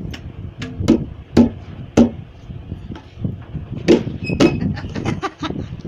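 Tabla drums slapped with open palms by a toddler: about a dozen uneven, unrhythmic hits on the small wooden dayan and the large metal bayan, several with a short low ring, and a quicker cluster of taps near the end.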